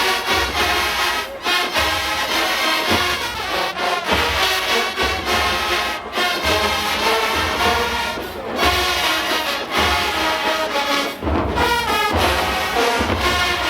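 Marching band playing at full volume: a loud brass section with trombones carrying the tune over repeated low bass drum beats.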